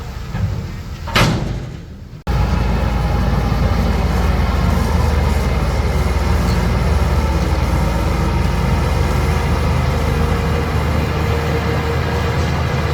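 Heavy diesel engine of earthmoving equipment running steadily under load. A sharp loud noise comes about a second in, and the engine sound jumps abruptly louder about two seconds in.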